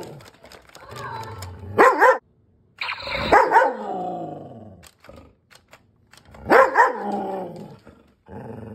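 Poodle-cross dog barking in three bursts of two quick barks each, the last one near the end.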